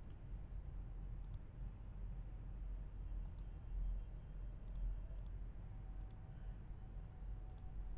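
Computer mouse clicking about six times at irregular intervals, each click a quick doubled tick, over a low steady hum.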